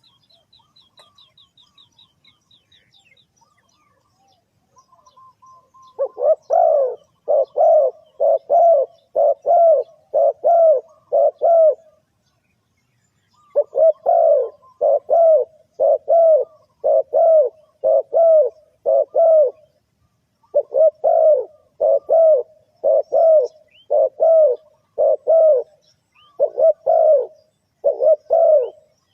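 Spotted dove cooing, a run of low coos repeated about twice a second in phrases of around six, with brief pauses between phrases. A faint high, rapid trill from a small bird is heard in the first few seconds, before the cooing starts.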